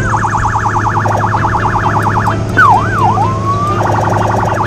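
Electronic police siren in fast yelp, warbling rapidly up and down. About two and a half seconds in it switches to two slow swoops and a rising tone, then goes back to the fast yelp near the end. A steady low hum runs underneath.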